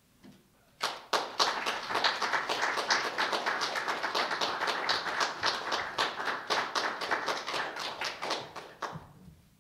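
A small audience applauding, with the separate claps easy to pick out. The applause starts about a second in and dies away near the end.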